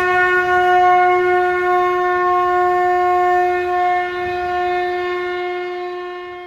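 A conch shell (shankh) blown in one long held note, steady at first and then fading away gradually over the last couple of seconds.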